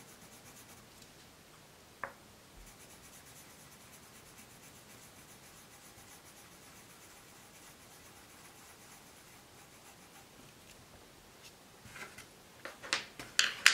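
Giotto Stilnovo navy blue coloured pencil scribbling on paper in quick, rapid strokes, a faint steady scratchy sound as a swatch is filled in. Near the end, a few sharp clicks and taps as pencils are handled.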